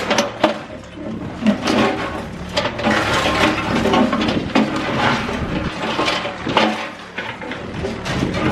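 A Cat 305E2 mini excavator breaking up a concrete building reinforced with rebar: many irregular cracks, knocks and crunches of concrete and steel over the steady running of its diesel engine.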